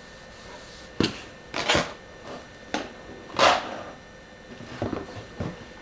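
Items being handled and moved about inside a cardboard shipping box: a string of short rustles, knocks and scrapes, the loudest about three and a half seconds in, with a few smaller ones near the end.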